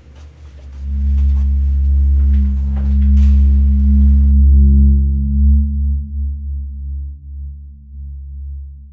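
Deep, steady drone of several sustained low tones, swelling in about a second in. Faint high clicks and hiss above it drop out suddenly about four seconds in, leaving only the low drone.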